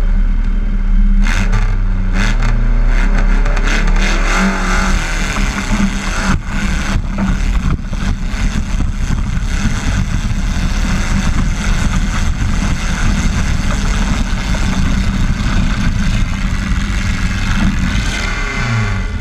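Modified pulling garden tractor's engine running hard at full throttle under heavy load, steady and loud, through a full pull.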